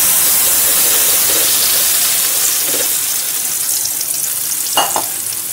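Ground tomato chutney paste poured into hot tempering oil with mustard seeds, cumin and urad dal: a loud, steady sizzle and hiss that slowly dies down, with a light knock near the end.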